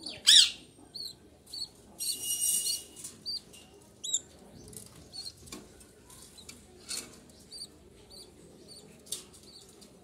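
Caged budgerigars chirping in short, repeated high calls, with one loud falling call right at the start. About two seconds in there is a brief rustling burst, and a few sharp clicks follow later.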